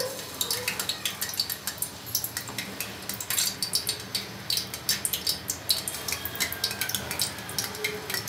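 Urad dal vada batter balls frying in hot oil in a kadai: sizzling with dense, irregular crackles and pops.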